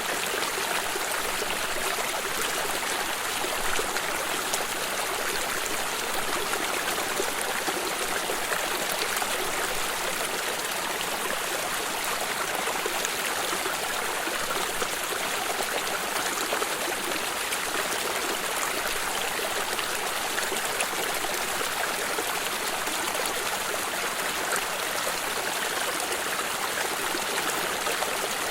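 Water stream flowing steadily over rocks, a continuous rushing and trickling with small splashes.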